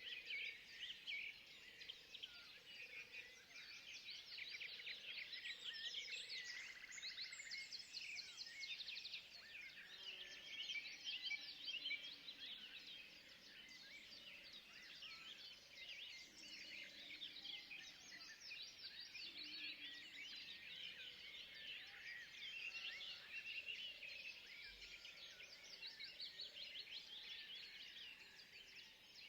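Forest ambience: a dense, continuous chorus of rapid high chirps, with a few faint lower calls here and there.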